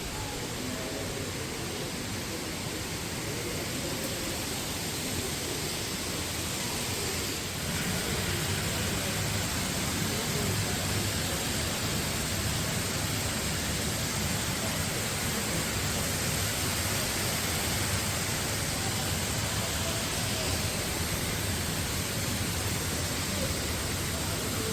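Steady hiss of rain mixed with city street noise. A deeper rumble joins about seven seconds in and stays.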